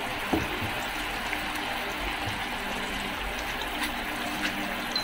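Mackerel-and-glass-noodle broth simmering in a frying pan, bubbling and hissing steadily. The spatula knocks once against the pan near the start.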